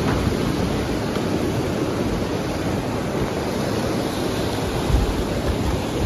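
Steady rush of a waterfall flowing fast and strongly, with a brief low thump about five seconds in.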